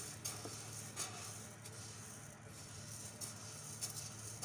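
Fried lisan al-asfour (small rice-shaped pasta) being put into a tagine dish, the dry grains giving faint scattered rattles and clicks over a low steady hum.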